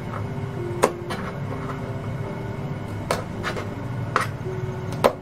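Kitchen knife trimming the ends off edamame pods on a plastic cutting board: about five sharp taps of the blade striking the board, spaced unevenly, the loudest about a second in and near the end.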